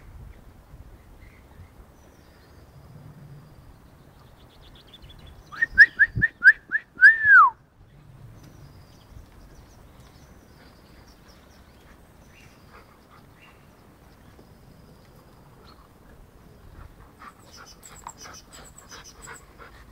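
A person whistling: about six quick notes on one high pitch, then a longer note that slides down.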